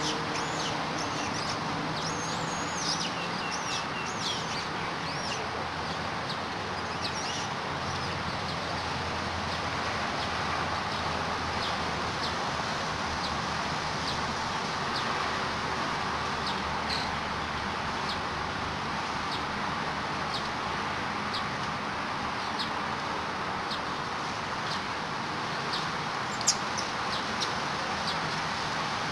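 Steady outdoor background noise with many short, high chirps and squeaks scattered over it. They are thickest in the first several seconds, and one sharp click comes near the end.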